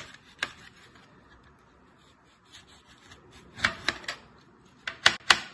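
Kitchen knife slicing an orange into thin discs, the blade sawing through peel and flesh and tapping the cutting board with each cut. Scattered sharp taps, a few together about three and a half seconds in and three quick, louder ones near the end.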